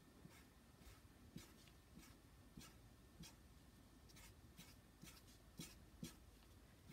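Faint scratching of a marker pen on paper: short strokes about twice a second as a row of small joined curves is drawn.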